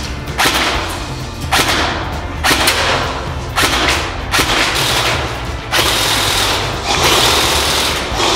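Airsoft gun firing single shots, about one a second, each a sharp crack with a short hissing tail.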